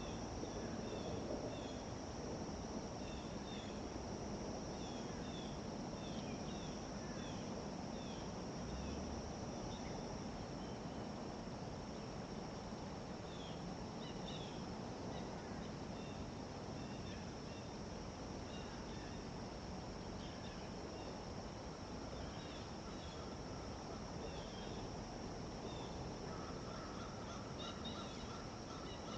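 Outdoor nature ambience: a steady high-pitched insect drone with many short bird chirps scattered throughout, over an even background rush.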